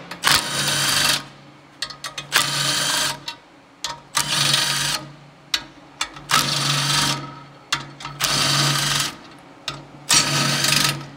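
Cordless Milwaukee Fuel impact tool running in short bursts of about a second each, about six times, as it backs out the small 12-point bolts of a beadlock ring one after another. Light metallic clicks come between the bursts.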